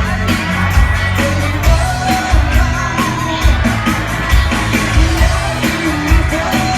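Rock band playing live with a singer over a steady drum beat, with cymbals.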